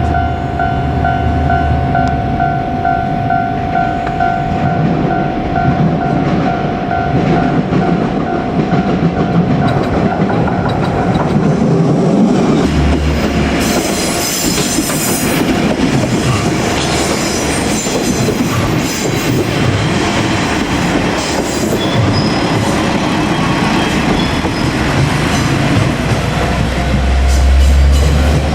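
A Japanese level-crossing alarm rings steadily in a pulsing two-tone. From about twelve seconds in, a JR Kyushu 'Ibusuki no Tamatebako' diesel railcar train passes close by, its wheels clattering over the rail joints with some wheel squeal.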